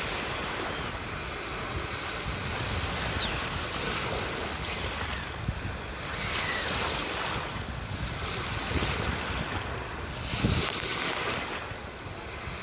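Sea waves washing in, a continuous rushing wash that swells about six seconds in and again about ten seconds in.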